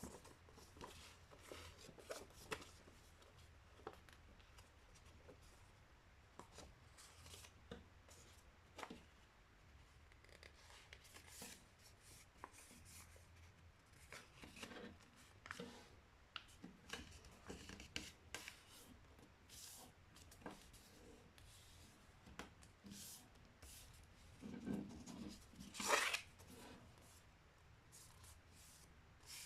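Sheet of paper being handled, folded and creased by hand: faint scattered rustles and short crinkles, with one louder crinkle near the end.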